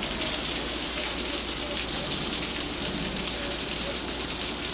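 Steady rain falling, an even hiss that neither rises nor falls.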